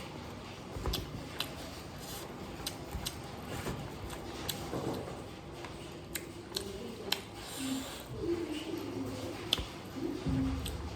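Close-up eating sounds from a mukbang meal of fish with bamboo shoot: chewing and mouth smacks, with a string of sharp, irregular clicks.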